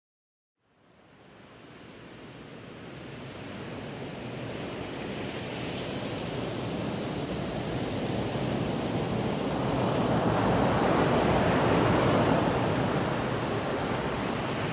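Ocean surf washing up a sandy beach: a steady rushing wash that fades in from silence just after the start, builds to its loudest about ten to twelve seconds in, then eases slightly.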